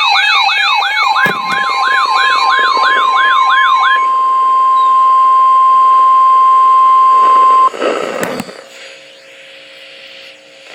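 Electronic siren sweeping up and down about three times a second over pulsing alarm tones, overlapped and then left behind by the single steady Emergency Alert System warning tone, which cuts off sharply after about six seconds. A short burst of static with clicks follows, then a faint hum.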